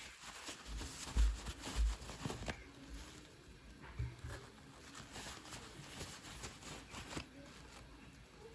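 Toys and packaging being handled close to the microphone: scattered light clicks and rustles of plastic, with two soft low thumps a little over a second in.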